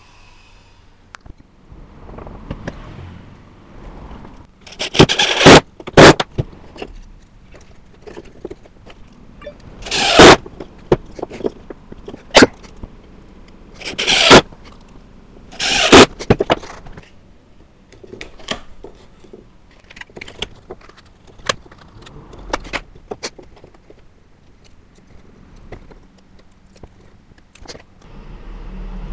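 Screws being driven into the plywood blocks of a wooden sawing jig: about six short, loud bursts spread over the first half, each rising quickly and stopping abruptly. Lighter clicks and knocks of wood pieces being handled come in between and after.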